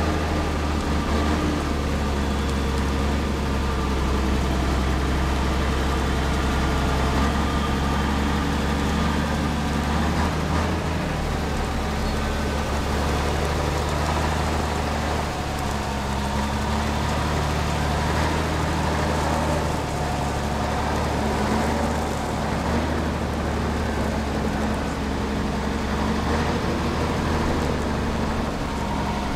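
Scania 111's straight-six diesel engine running at a steady idle with a deep, even hum.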